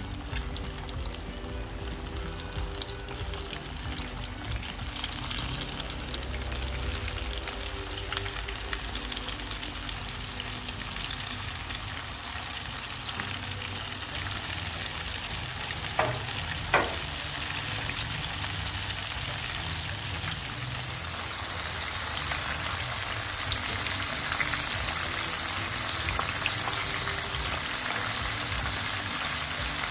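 Breaded chicken pieces deep-frying in hot oil, a steady sizzle that gets louder over the last third. A little past halfway there are two sharp clicks of a metal utensil against the pan as the pieces are turned.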